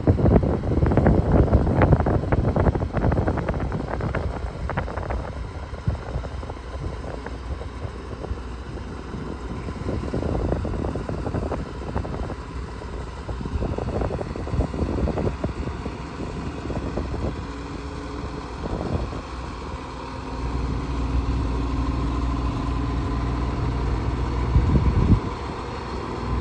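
Sutphen SL100 aerial ladder fire truck's diesel engine running as the truck drives slowly past and turns, with wind buffeting the microphone in the first few seconds. The engine settles into a steadier low drone in the last several seconds, with a brief louder surge near the end.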